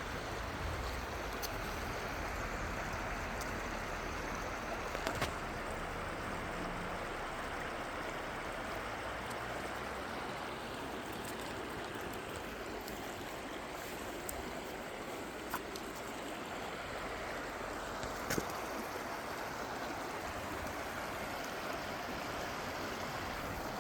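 Mountain stream running steadily over rocks, with a few small clicks or knocks here and there.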